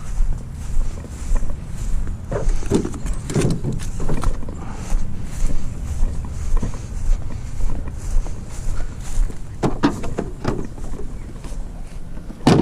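Scattered knocks and scrapes from an old refrigerator being handled and loaded onto a pickup, over a steady low rumble.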